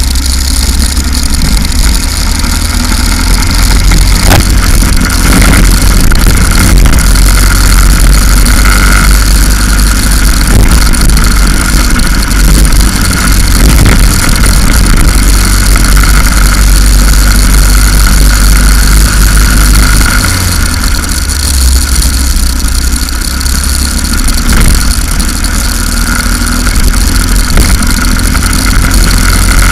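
Go-kart engine running flat out on track, its pitch wavering up and down through the corners, under a heavy low rumble, with a few sharp knocks.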